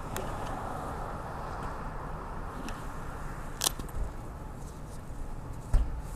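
Freight train rolling past, a steady rumble of wheels on rail with two sharp clacks, one a little past the middle and one near the end.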